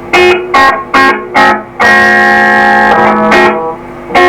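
Electric guitar played through an Electro-Harmonix Big Muff pedal into a bench amplifier. Short strummed chords come about two a second, then one chord is left to ring for about a second, then more strums follow. A hiss lies behind the notes, which the repairer calls horrendous, from the pedal's circuit.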